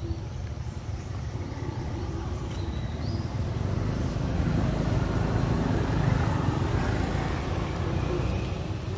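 Steady low rumbling noise that swells about halfway through and eases off near the end.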